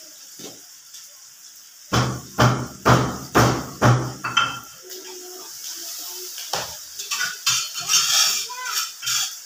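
Cookware sounds at a gas stove: a run of six even knocks, about two a second, followed by lighter irregular clinks and scrapes of a spatula in a frying pan.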